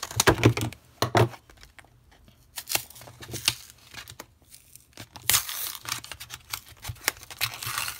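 Scissors cutting through a cardboard-and-plastic Tsum Tsum blister card, a few sharp snips in the first second or so, followed by the paperboard backing being torn and peeled apart by hand with crinkling, the tearing loudest from about five seconds in.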